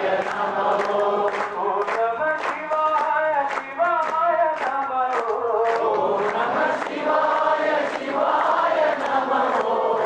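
A group of devotees singing a Hindu devotional bhajan together, the melody rising and falling in long sung phrases, over a steady percussive beat of about two strikes a second.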